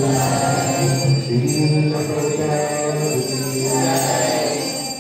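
Low voices chanting a Sanskrit devotional prayer in long, held notes, with continuous metallic jingling over them.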